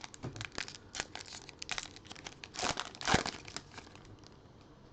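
Foil trading-card pack wrapper being torn open and crinkled by hand, a quick run of crackling rustles that is loudest about three seconds in.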